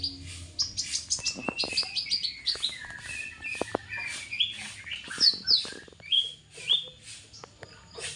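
A bird chirping and calling in quick, repeated short high notes, some falling in pitch, with scattered sharp clicks among them.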